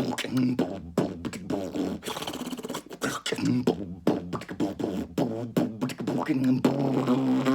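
A man beatboxing: rapid mouth clicks and snare-like hits over a hummed bass tone, ending on a held hum.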